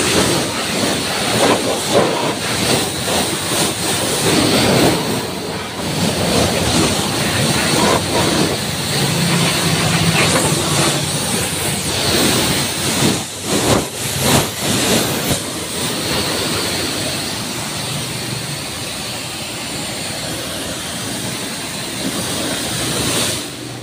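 Pressure washer jet spraying water onto a motorcycle's wheel, engine casing and exhaust: a steady loud hiss of spray that swells and dips as the jet moves, easing off near the end.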